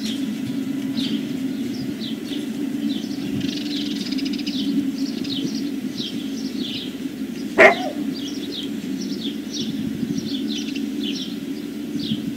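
Small birds chirping repeatedly over a steady low hum, with a single dog bark a little after halfway through.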